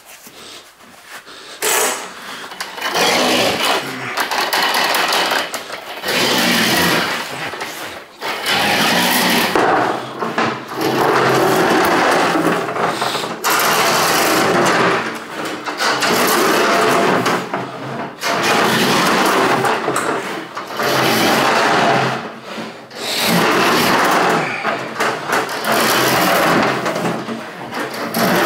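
Milwaukee M18 drum drain machine running with its 7/8-inch cable, in repeated bursts of a second or two, as the spinning cable is pulled back out of the drain.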